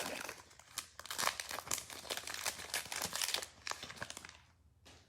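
Foil trading-card pack wrapper crinkling as it is torn open and handled, a dense run of crackles that dies away near the end.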